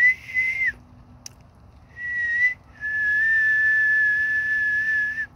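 A person whistling three notes: a short one that rises slightly and falls away, a brief rising one about two seconds in, then a long, steady held note.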